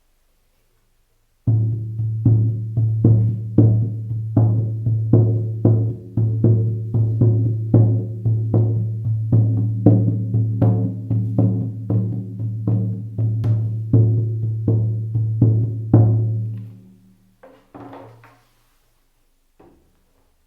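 Shamanic frame drum beaten in a steady beat of two to three strokes a second, each stroke leaving a deep, ringing boom. The beating starts about a second and a half in and stops a few seconds before the end, followed by a few light knocks.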